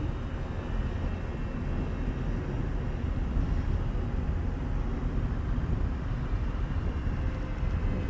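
Gusty wind buffeting the microphone with a steady low rumble, over the faint, distant whine of the Rambler RS flying wing's electric motor and propeller in flight.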